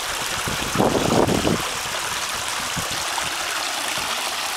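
Backyard pond waterfall: water spilling steadily over the spillway into the pond. A brief louder sound comes about a second in.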